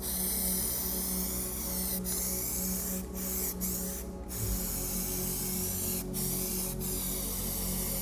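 Compressed-air spray gun spraying primer: a steady hiss that breaks off for a moment several times as the trigger is let go and squeezed again.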